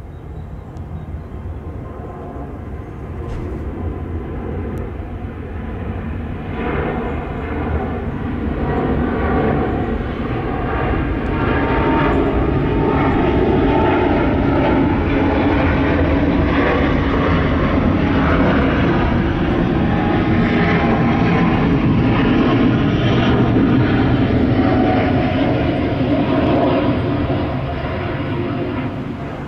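Jet airliner climbing out after takeoff, its engines a loud, noisy rumble. The noise builds over about ten seconds, holds at its loudest, then starts to fade near the end.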